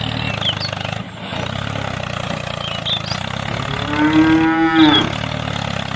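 A cow moos once, a long call about four seconds in, over a small engine running steadily.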